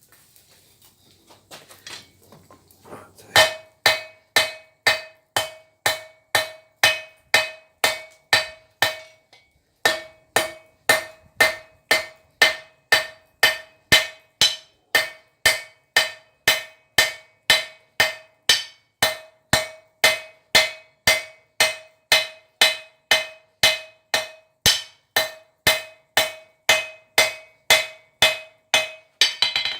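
Hand hammer striking hot steel on an anvil to draw out the stock for a pair of tongs. The blows come at a steady two to three a second, each with a bright ring. They start about three seconds in and break off briefly twice.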